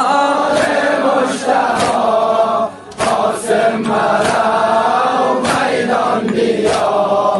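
Muharram noha (Shia lament) in Dari: voices chanting a mournful line in chorus over a steady beat about twice a second, with a brief break about three seconds in.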